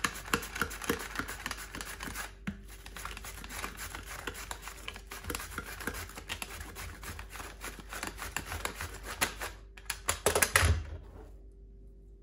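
Red cabbage being shredded on a handheld plastic mandoline slicer: fast, rasping slicing strokes one after another, with a few louder knocks just before they stop near the end.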